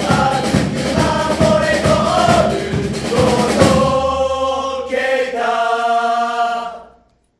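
A group of voices singing a football supporters' chant over a steady drumbeat. The drums stop about three and a half seconds in and the singing finishes on long held notes that fade out just before the end.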